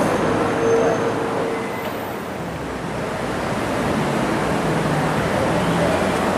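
Busy city street traffic: a steady rush of cars and buses passing.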